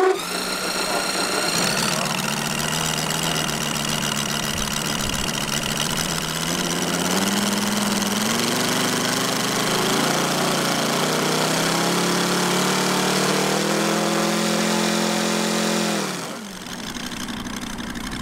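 Moki four-stroke radial engine of a giant-scale RC Focke-Wulf Fw 190 catching on an electric starter, then running with its pitch rising and falling as the throttle is worked. About sixteen seconds in it drops back to a quieter idle.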